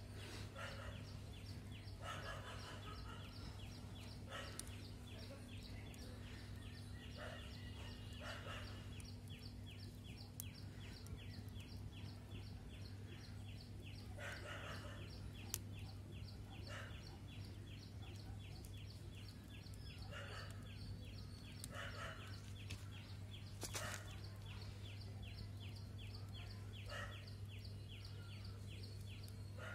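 Outdoor ambience: a fast, even insect-like chirping runs under bird calls that come every few seconds, over a steady low hum, with a few sharp pops.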